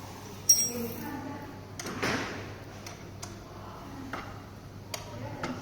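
Scattered clicks and knocks of small parts and tools being handled, with a sharp rattling click about half a second in, the loudest sound, and a brief rustling swish around two seconds.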